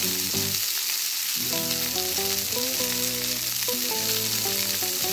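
A frying sound effect for pretend french fries cooking in a toy pot: a steady sizzling hiss like hot oil. A simple melody plays softly under it from about a second and a half in.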